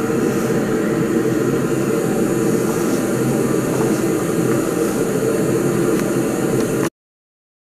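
Steady test noise from a sound source in a box, muffled by a sheet of Otokui 5 sound-insulating material laid over it, which cuts the meter reading from 83.3 to about 70 dB(A). The noise is even, with a low drone in it, and cuts off suddenly near the end.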